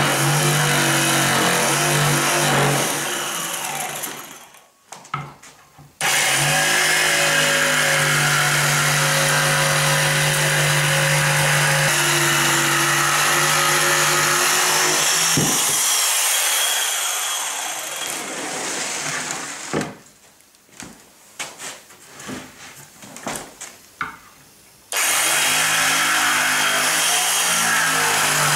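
Electric power tool running at a steady pitch while cutting panel stock. It is switched off twice, winding down each time, with a few knocks and clatters in the pause before it starts up again.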